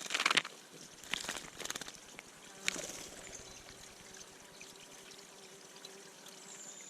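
Water splashing in a shallow bird bath as a bird bathes: a few short splashes, the first and loudest at the start, then lighter ones over the next few seconds.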